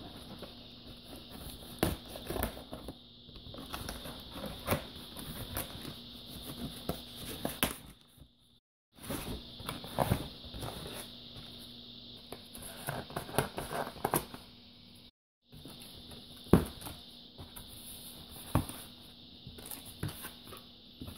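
Scissors cutting packing tape on a cardboard box, then cardboard flaps rustling and scraping as the box is handled and opened: irregular small clicks and rustles over a faint steady hum, with two brief cuts to silence.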